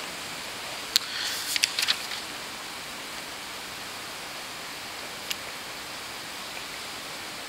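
Steady hiss of room tone and microphone noise, with a brief rustle and a few light clicks between one and two seconds in, and another single click about five seconds in.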